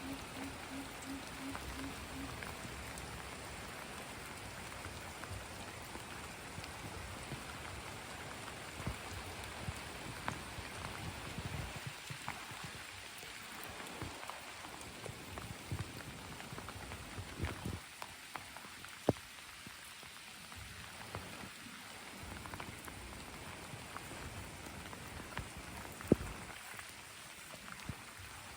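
Steady rain falling, with a constant hiss of drops and a few sharper single drips standing out in the second half.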